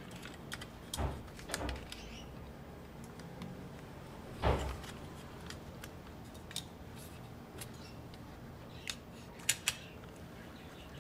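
Pet birds chirping now and then in short, sparse high chirps, with one louder knock about four and a half seconds in.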